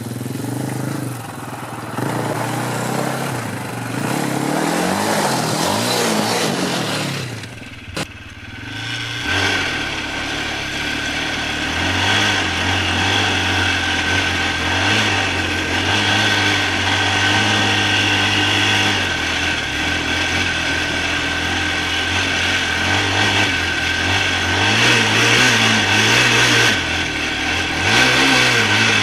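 Polaris Outlaw 525 ATV's KTM single-cylinder four-stroke engine revving up and down, dropping off briefly about eight seconds in, then held at high, fairly steady revs for a long stretch before easing near the end.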